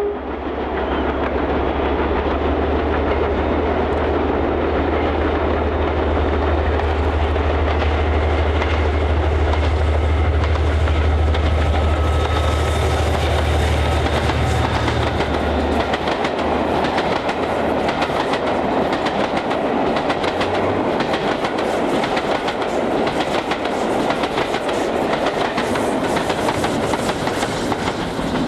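Diesel-hauled charter train passing: the Class 57 locomotive's engine gives a steady low drone that ends about halfway through. The coaches then roll past with wheels clattering rapidly over the track.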